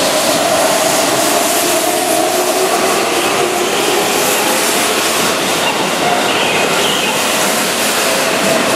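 Keihan 9000-series VVVF electric train pulling out of a station and gathering speed, a steady whine from its traction motors over the running noise of the wheels on the rails.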